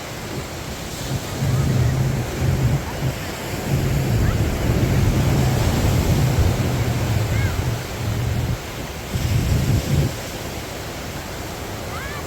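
Ocean surf washing onto the beach, with wind buffeting the microphone in gusts from about a second in until near the end.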